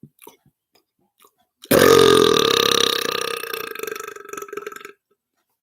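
A man's long, loud burp that starts abruptly about two seconds in, holds one low, steady pitch and trails off over about three seconds.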